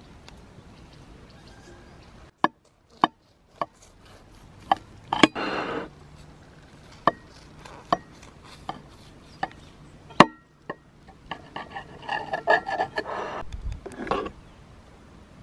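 Knife cutting through the crisp baked lavash crust of a shah plov: a string of sharp cracks, then a longer spell of crunching and crackling near the end as the crust is broken open.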